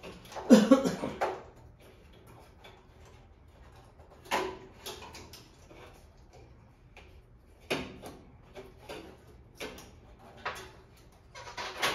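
Clicks and knocks of tools and small parts being handled while working on an espresso machine's switch and wiring: a loud clatter about half a second in, then single sharp knocks every one to three seconds.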